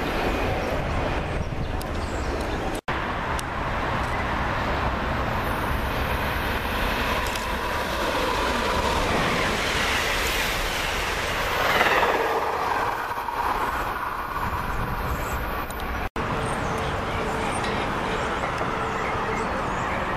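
Amtrak passenger train of stainless-steel Amfleet coaches passing close by at speed: a steady rush of wheels on rail, loudest about twelve seconds in. The sound drops out for an instant twice, about three and sixteen seconds in.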